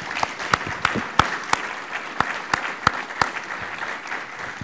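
Audience applauding, with one person's claps close and loud over the rest, about three a second, stopping a little past the middle while the crowd's applause tails off.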